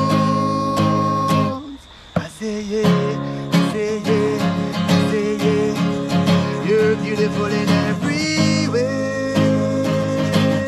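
A song with guitar accompaniment and a singing voice holding long notes; the music dips briefly about two seconds in, then carries on.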